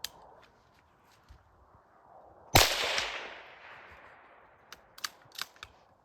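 A single gunshot about two and a half seconds in, its echo dying away over a second or so, followed by a few faint clicks.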